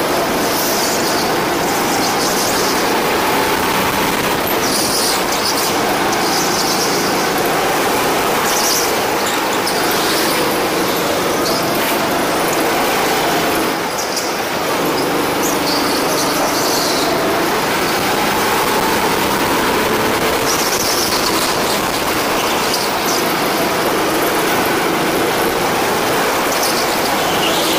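Go-kart engine running hard through a lap, its pitch rising and falling as the kart accelerates and slows for corners. Short high tyre squeals come now and then.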